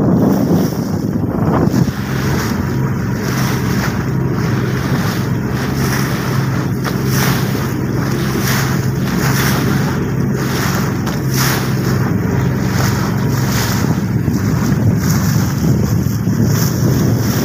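Motorboat engine running at a steady hum while under way, with water rushing past the hull and wind buffeting the microphone in frequent gusts.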